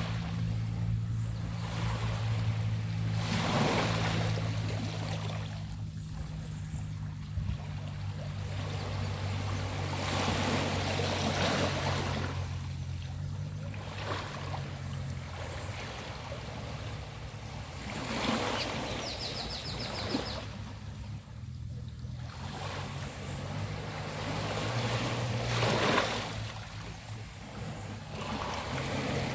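Small sea waves washing onto a beach, each swell rising and falling every few seconds. A steady low engine hum runs underneath, fading in the middle and returning near the end.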